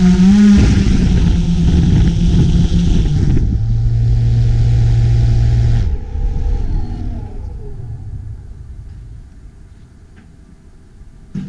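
GoPro Karma quadcopter's rotors running loud as it sets down, dropping to a lower steady hum, then the motors wind down and stop about six seconds in.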